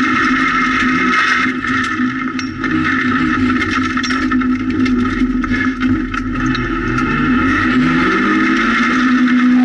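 Rally car engine at high revs on a gravel stage, heard from inside the cabin, with a rattle of gravel striking the underbody. The engine note drops about a second and a half in and again around six seconds, then rises steadily near the end as the car accelerates.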